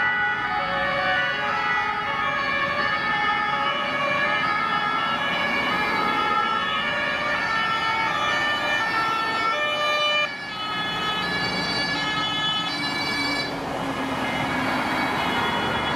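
Several German two-tone emergency sirens (Martinshorn) on a passing convoy of ambulances and rescue vehicles, each alternating between a high and a low note, overlapping out of step at different pitches over the noise of the vehicles driving by. The sound drops sharply for a moment about ten seconds in.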